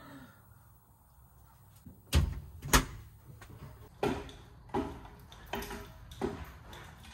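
Two sharp knocks about two seconds in, then footsteps going down folding metal camper steps, a thump about every 0.7 s, each with a slight metallic ring.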